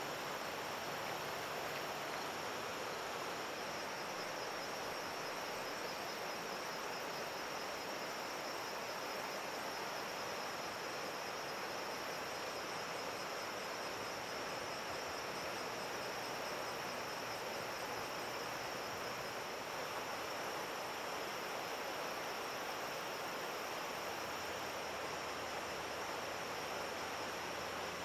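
Steady chorus of crickets, a high pulsing trill, over an even background hiss.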